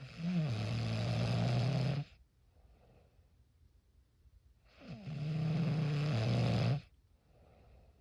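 A person snoring: two long snores about five seconds apart, each lasting about two seconds, with faint breathing between them.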